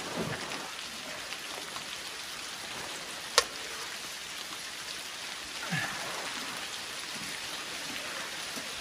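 Bare feet treading wet cob on a tarp over a steady rain-like hiss, with one sharp clank about three and a half seconds in.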